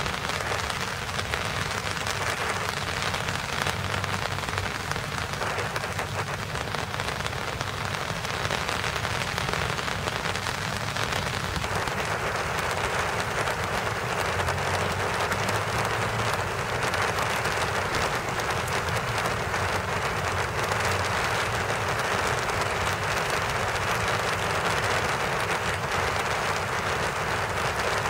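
Steady rain falling on rose bushes, an even hiss of rain with many fine ticks of drops striking the petals and leaves.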